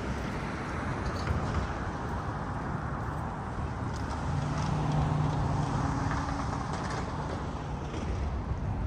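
City street traffic: steady road noise, with a vehicle's engine hum swelling about four seconds in and fading out by about seven seconds.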